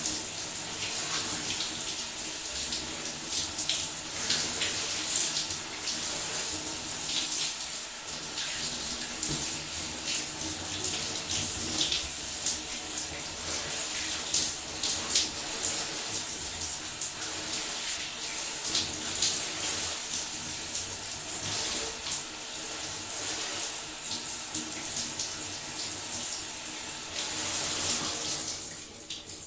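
Shower spray running and splashing on a person showering, a steady hiss with irregular splashes. The water is turned off near the end and the hiss cuts out.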